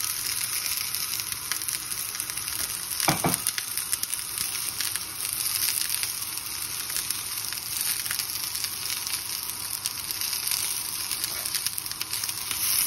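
Hot oil sizzling steadily, with one short knock about three seconds in.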